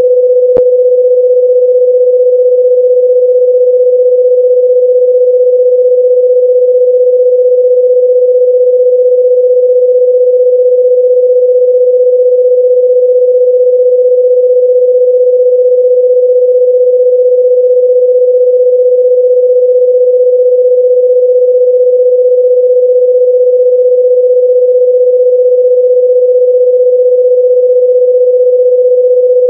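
Loud, steady electronic pure tone at one unchanging pitch of about 500 Hz, with a single brief click about half a second in.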